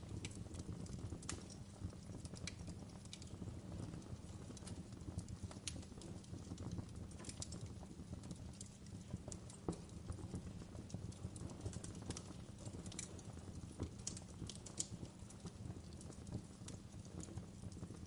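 Wood fire burning down to glowing embers, giving irregular sharp crackles and pops over a steady low rumble.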